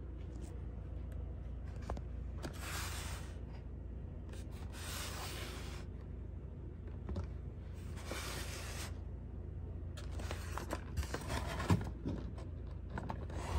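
Cardboard toy box being handled and turned over: three short spells of cardboard rubbing and scraping, then a run of light knocks and taps near the end.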